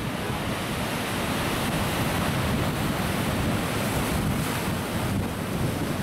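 Pacific Ocean surf breaking and churning, a steady wash of noise, with strong wind blowing across the microphone.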